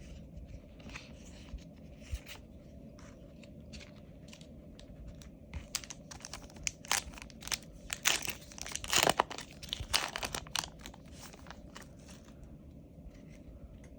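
Yu-Gi-Oh booster pack's foil wrapper crinkling and tearing open: sparse faint crackles at first, then a dense run of crackles and tearing about halfway through, loudest a little past the middle.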